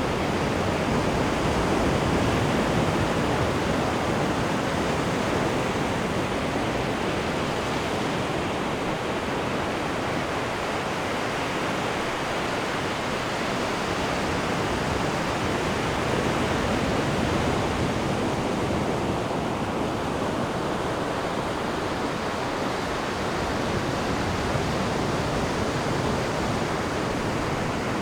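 Ocean waves washing onto the shore in a continuous rush of surf, swelling gently every several seconds.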